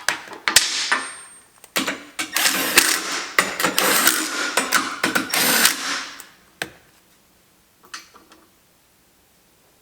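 Steel vise base parts and tools being worked as the base is fastened to a table: dense metallic clicking and rattling for about six and a half seconds, then a few light clicks.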